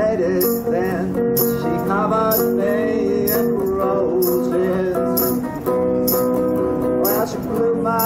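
Hollow-body archtop guitar playing a country-style tune, with a short bright jingling percussion hit about once a second keeping the beat.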